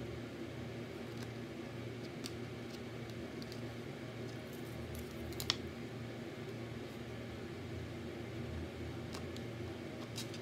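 Light clicks and taps of wooden craft sticks being handled and pressed together on a tabletop, with one sharper click about halfway through, over a steady low room hum.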